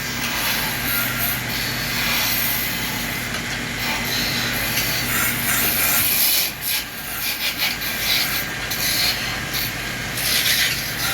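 Wood lathe running with a steady motor hum while a hand-held turning tool scrapes against the spinning wood of a charpai leg. The scraping comes in short, irregular strokes in the second half.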